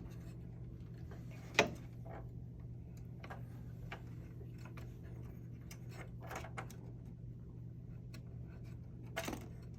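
Small clicks and light knocks of hands handling small parts and wires, one sharper click about a second and a half in and another near the end, over a steady low hum.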